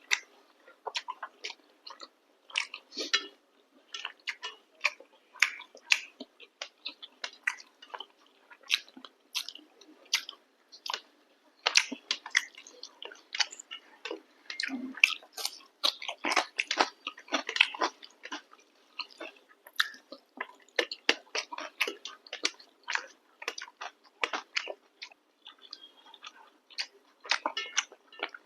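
Close-miked chewing and biting of chicken curry and chapati: a steady run of sharp wet smacks and clicks from the mouth.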